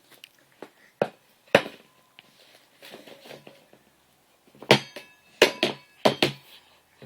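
A string of sharp knocks and bangs at uneven intervals, two early and a cluster of five in the second half. Several of the later hits leave a short ringing tone, like struck metal.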